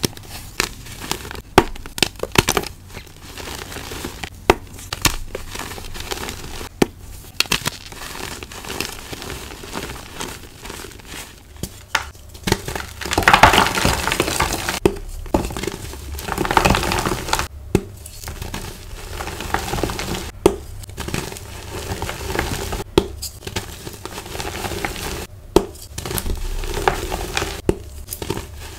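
Hands crushing and squeezing crumbly blocks of gym chalk: continuous close-up crunching and crackling, broken by many sharp snaps as pieces break apart, with a denser, louder stretch of crushing about halfway through.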